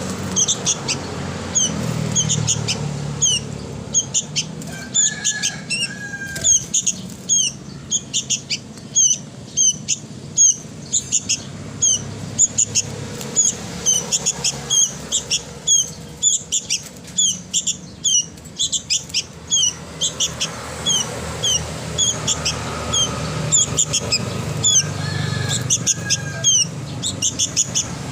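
Young sooty-headed bulbul (kutilang) chick calling: short, high, down-slurred cheeps repeated a few times a second without pause, over a low background hum.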